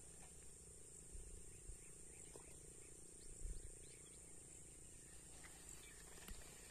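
Near silence with a faint, steady, high-pitched insect drone, and a few soft low bumps, the loudest about halfway through.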